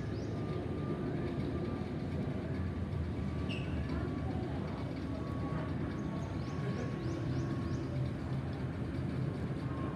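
Airbus A320neo's CFM LEAP-1A turbofan engines heard from the ground as the jet passes overhead: a steady, even rumble with a faint high whine running through it.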